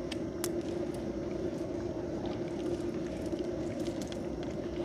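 A small boat's engine running steadily, with a few faint clicks over it.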